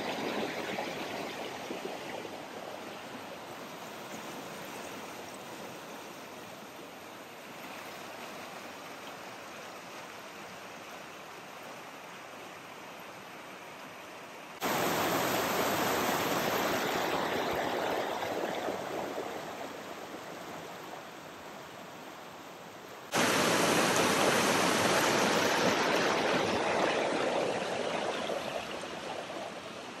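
Rushing water of a mountain stream and waterfall, a steady rush. It turns abruptly louder about halfway through and again toward the end, and eases off gradually in between.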